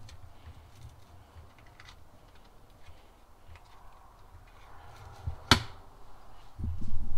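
Computer power supply cables and plastic connectors being handled and pushed into a power supply tester: light clicks and cable rustling, with one sharp click about three-quarters of the way in as a connector seats. Dull low bumps follow near the end.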